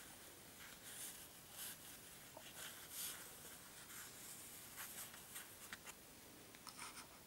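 Faint, scattered scratching and rubbing as a fingertip slides and turns a small polished opal on a mat.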